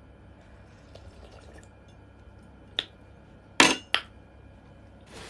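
A few short, sharp clinks and knocks of a glass and tableware while she drinks, the loudest a little over halfway through.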